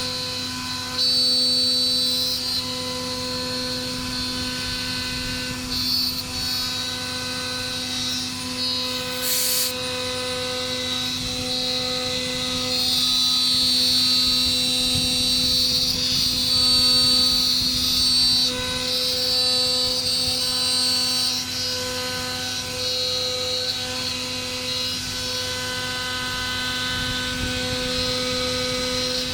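CNC machine running with a steady high whine over a low hum, its level wavering a little as it works, with a short hiss about nine seconds in.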